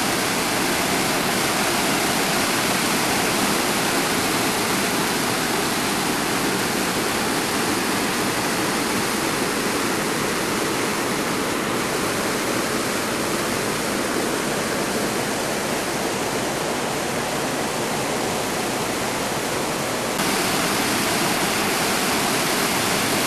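Waterfall and river rapids: a steady rush of falling and running water, a little brighter and louder near the end.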